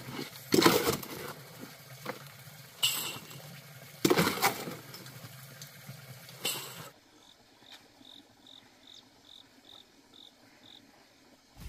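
A steel shovel scrapes and scoops wet concrete in a metal wheelbarrow, four rough scrapes in the first seven seconds. Then, after a sudden drop to quiet, an insect chirps, a short high chirp repeating about two or three times a second.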